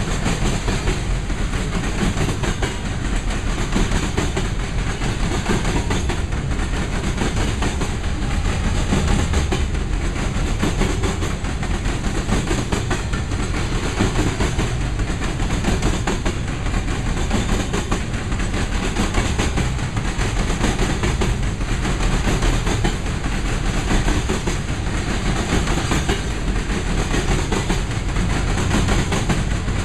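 Herzog ballast hopper cars of a freight train rolling past: a steady rumble of steel wheels on rail with a continual clatter of wheel clicks over the rail joints.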